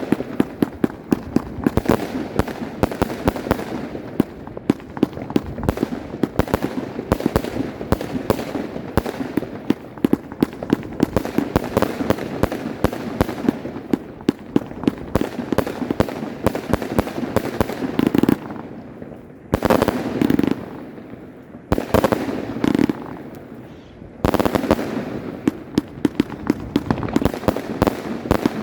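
Volt! Voltbrothers firework battery firing: a dense run of sharp cracking shots, many a second. It thins out briefly twice past the middle, between short volleys, then picks up again.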